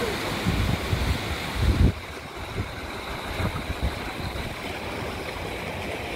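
Sea waves washing and breaking against the rocks at the foot of a cliff, a steady rushing surf. Wind buffets the microphone in gusts during the first two seconds, loudest just before two seconds in.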